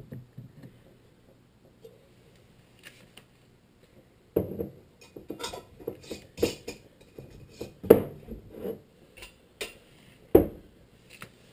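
Glass mason jars clinking and knocking against a wooden board stand as the full collection jar under a pot still's spout is swapped for an empty one. A few faint clicks at first, then from about four seconds in a quick run of clinks and knocks, the loudest two near the end.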